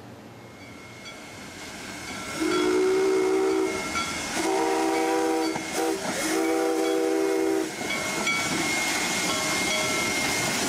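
Small steam locomotive's whistle blowing three blasts of about a second and a half each, every blast a chord of several tones, as the engine comes up to a road crossing. Steady hiss and running noise of the locomotive rise before the blasts and carry on after them.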